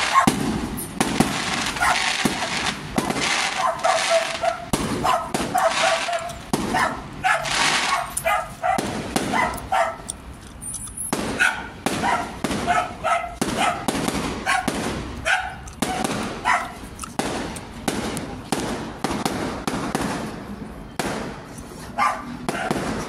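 Fireworks bursting and crackling in quick succession, with a dog barking repeatedly throughout.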